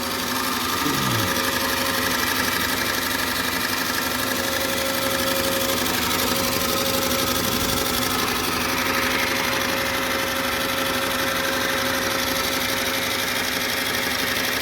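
RCA TP-66 16mm film projector running empty with no film threaded: a steady mechanical clatter of its motor, shutter and intermittent film-advance mechanism, with a steady hum underneath.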